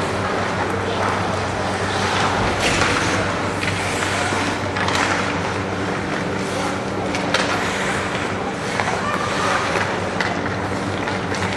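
Ice hockey game in play: skate blades scraping the ice and repeated sharp clacks of sticks and puck, over a steady low hum.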